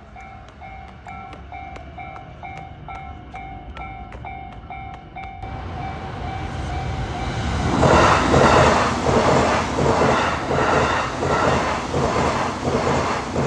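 Japanese level-crossing warning bell ringing its repeated 'kan-kan', about two strikes a second; the ring drops out about five seconds in. A train then passes, loud from about eight seconds in, its wheels clattering over the rail joints in a steady rhythm.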